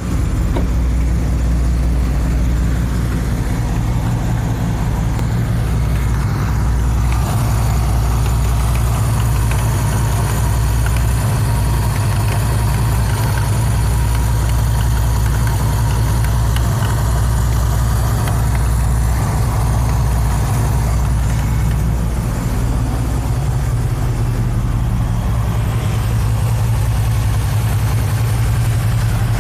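Cadillac Northstar V8 idling steadily, with a hiss from a vacuum leak at the intake manifold gasket and a light ticking whose cause the owner doesn't know.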